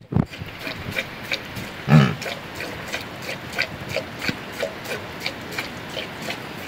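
A yak grunts once, a short low pig-like grunt about two seconds in, after a thump right at the start. Faint quick ticks, about three a second, run underneath.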